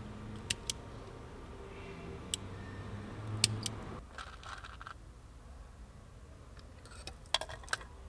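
Sharp metallic clicks and snaps of hand tools, a wire stripper and then pliers, working car-alarm wiring under a dashboard. They come singly and in pairs through the first half, with a quick cluster of clicks near the end; a low hum under the first half drops away at about the midpoint.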